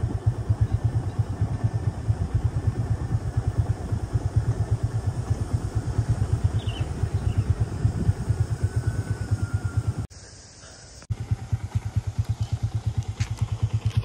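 Motorcycle engine running steadily while riding, with a fast regular pulsing from the engine; the sound drops out for about a second, about ten seconds in.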